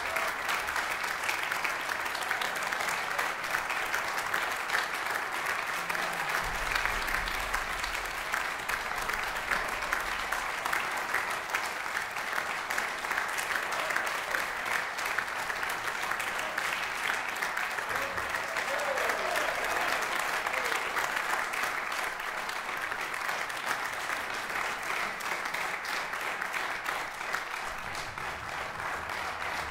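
Audience and band applauding steadily, a dense clatter of many hands clapping that eases slightly near the end.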